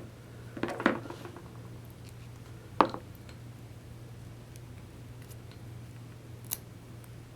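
A few light metal clicks and taps from a 3/8-drive ratchet being handled and opened up for cleaning, with one sharper click about three seconds in.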